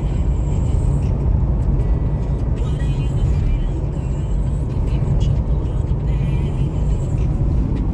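Steady low rumble of a car being driven, engine and tyre noise heard from inside the cabin, with faint music underneath.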